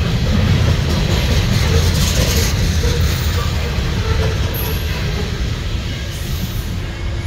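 Freight train of coal hopper cars rolling past, steel wheels on the rails making a steady low rumble. Near the end the last car goes by and the sound eases off.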